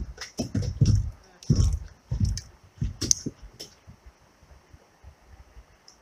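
Irregular dull knocks and scrapes of handling noise on a kayak as the angler shifts and works his rod, with a few sharper clicks about three seconds in. They die away after about four seconds, leaving a faint steady hiss.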